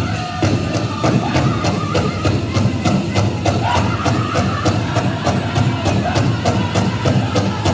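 Powwow drum group playing a chicken dance song: a fast, steady drumbeat of about four strokes a second, with singing.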